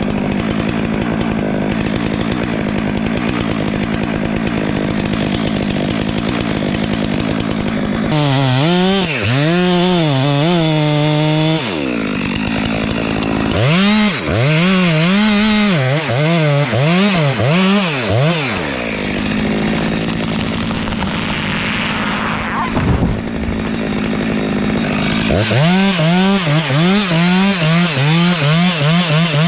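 Stihl MS462 two-stroke chainsaw cutting oak. It runs steadily at first, then its engine speed swings up and down again and again as the throttle is worked and the saw loads in the cut. Near the end the swings come fast, about two a second.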